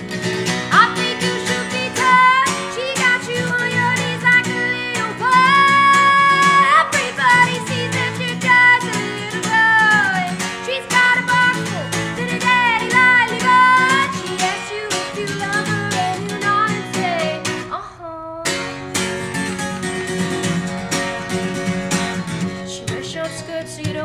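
A woman singing solo to her own strummed acoustic guitar, a live unaccompanied performance. The guitar stops for a moment about three quarters of the way through, then comes back in.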